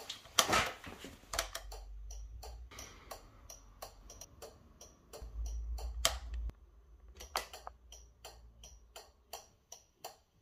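Motorcycle indicator flasher relay clicking steadily, about three clicks a second, as the indicators flash: the repaired indicator circuit now working. A knock sounds about half a second in, and a brief low rumble comes around the middle.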